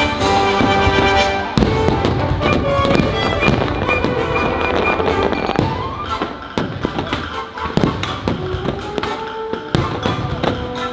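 Fireworks shells bursting in quick, irregular bangs and crackles over a patriotic music soundtrack played loud through the show's speakers.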